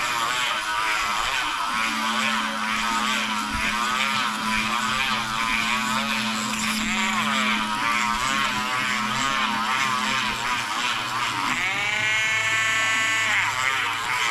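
Small electric power tool's motor running as it cleans up the cut edge of a hole punched in a .999 silver coin. Its pitch wavers while it is pressed against the metal. About twelve seconds in it speeds up with a rising whine and holds there.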